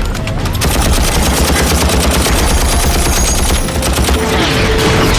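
Sustained rapid automatic fire from a helicopter door gun, a dense stream of shots over the low rumble of the helicopter's rotors.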